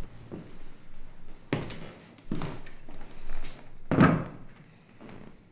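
A few dull thumps and knocks of a wooden chair and tableware as someone gets up from a dining table, the loudest thump about four seconds in.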